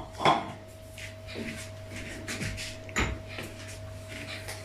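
Light knocks of kitchen things being handled on a counter, one just after the start and one about three seconds in, with a few fainter taps between, over a faint steady hum.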